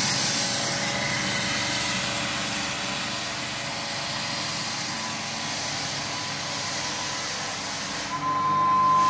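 Lägler Hummel drum floor sander running steadily as it sands a plywood subfloor: a motor hum with a high whine and the hiss of the abrasive belt on the wood. Near the end the sound shifts and grows a little louder.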